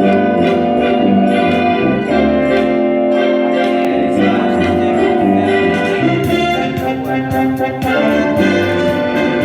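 Music with orchestra and brass instruments playing sustained chords and a steady beat.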